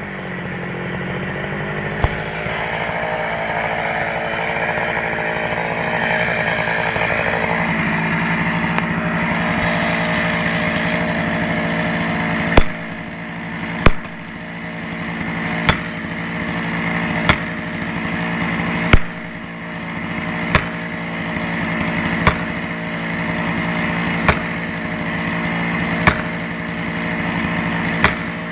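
Chainsaw engine running steadily at low speed. From about halfway through, sharp knocks come at a steady pace, roughly one every second and a half to two seconds.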